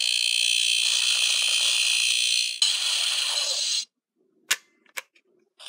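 Electronic sound effect played through the small speaker of a Power Rangers Lightning Collection Master Morpher toy: a loud, steady, high buzzing tone that shifts about two and a half seconds in and cuts off abruptly near four seconds. Two sharp clicks follow about half a second apart.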